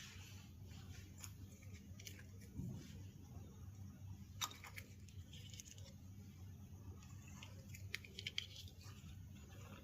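Faint handling of small plastic toy kitchen pieces: scattered light clicks and taps, with a few sharper ones about four and a half and eight seconds in, over a low steady hum.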